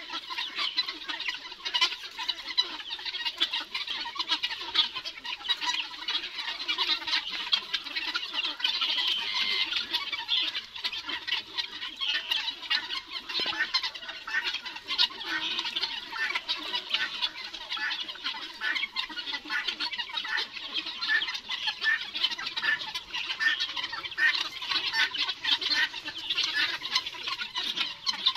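A flock of helmeted guineafowl calling while they forage: many short squawking calls overlap in a continuous chatter.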